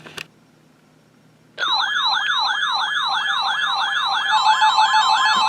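An electronic siren-style alert tone starts about a second and a half in: a loud, fast up-and-down warble, about three sweeps a second. A second, stepped beeping tone joins it near the end.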